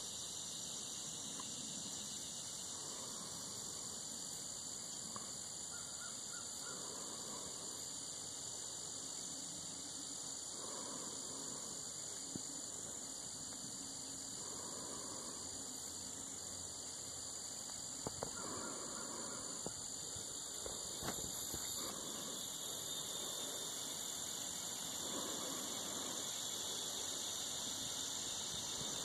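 A steady, high-pitched chorus of insects, with a few faint clicks about two-thirds of the way through.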